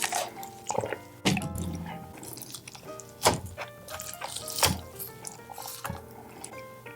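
Close-miked wet eating sounds, sharp mouth smacks and clicks with the loudest about a second, three seconds and four and a half seconds in, over light instrumental background music.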